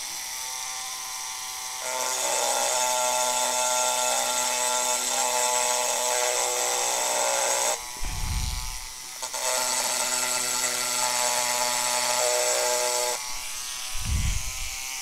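Rotary engraving tool with a round-tip diamond burr, running at about 3,500 RPM and grinding lines into mirror glass. It gives a steady whine, with a grinding hiss that grows louder in two stretches while the burr is pressed to the glass. The two stretches are split about eight seconds in by a short break and a low bump.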